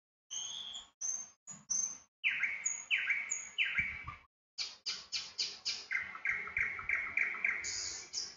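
Small bird chirping: a few downward-sliding chirps, then a quick run of short, high notes near the end.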